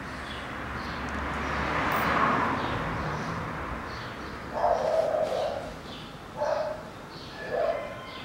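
A dog barking about four times in the second half, with faint bird chirps. Before that, a low steady hum and a swelling rush of noise fade out by about three seconds in.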